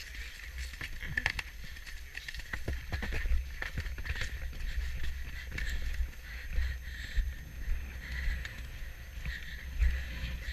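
A ridden horse galloping over frosty grass: irregular hoofbeats and rattling tack, with wind buffeting the microphone in a low, pulsing rumble.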